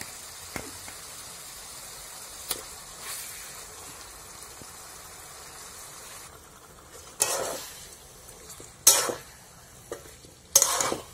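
Marinated chicken pieces sizzling in hot oil and spice paste in a kadai, with a few small clicks as pieces go in. About six seconds in the sizzle drops, and a spatula then scrapes and stirs through the pan three times.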